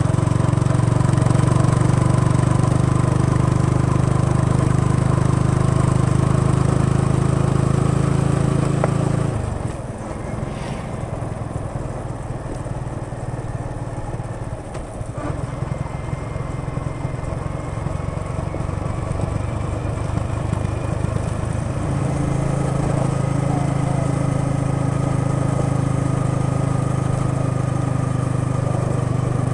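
Yamaha XSR 155's single-cylinder engine and exhaust while riding: a steady note under throttle, which drops quieter and turns uneven about nine seconds in, as when the throttle is closed and the bike rolls at low revs, then steadies and pulls louder again about twelve seconds later.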